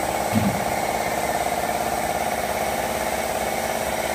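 Steady machine drone with a fine, regular pulsing, and a short low thump about half a second in.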